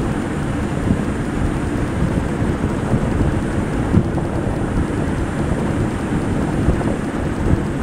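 Sea waves washing onto a sandy shore: a steady, low rushing noise with no breaks.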